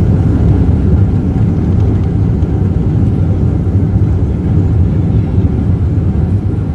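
Cabin noise of a Boeing 777-200ER on the landing roll: a loud, steady low rumble from the Rolls-Royce Trent engines and the wheels on the runway.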